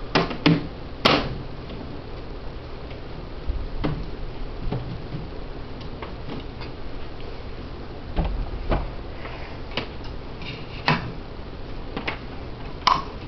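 Metal-framed mesh screen lid set back onto a glass terrarium: a few sharp clacks in the first second, the loudest about a second in. Scattered lighter knocks and clicks follow as a clamp lamp with a metal reflector is handled and set on the screen.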